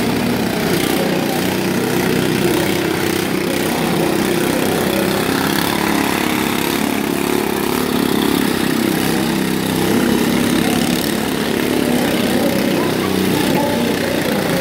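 Several riding lawn mower engines running together in a steady drone, with no clear crash or rev standing out.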